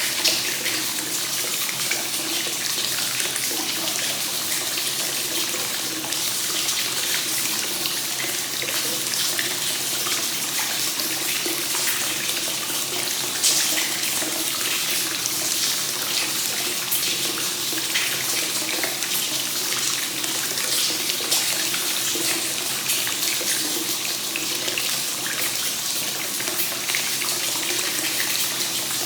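Hot spring water pouring steadily from a spout into a bath, a constant splashing with small irregular splashes on top, as the tub keeps running over with fresh spring water.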